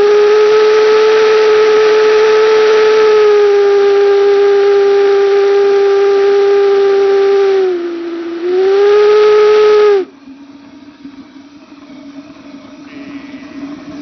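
Homemade steam whistle built from junk parts and fed from a 55-gallon drum steam generator, blowing one long, loud note with overtones. About eight seconds in the note sags in pitch and weakens, then climbs back and cuts off sharply at about ten seconds. After that only the steady noise of the steam and the waste-oil burner's fire remains.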